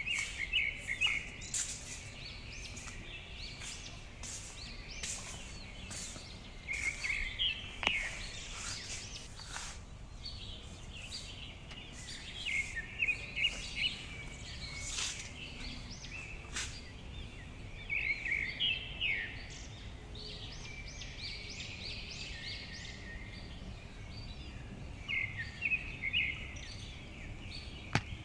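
Small birds chirping, with quick bursts of high chirps every few seconds over steady background noise and a few sharp clicks.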